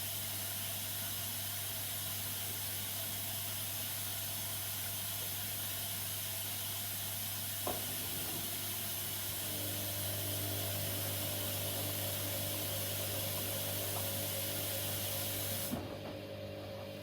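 Washing machine filling with water, a steady hiss over a low hum. About eight seconds in there is a click, then a motor or pump hum with several steady tones starts, and near the end the water hiss cuts off suddenly.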